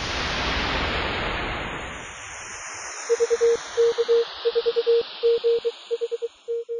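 A whoosh of static-like noise swells and fades away, then, about three seconds in, a steady mid-pitched beep keys on and off in short and long pieces: Morse code sent as a radio sidetone.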